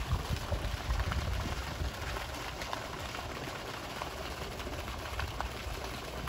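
Steady outdoor noise like running water, an even hiss with a low rumble beneath it and a few faint ticks.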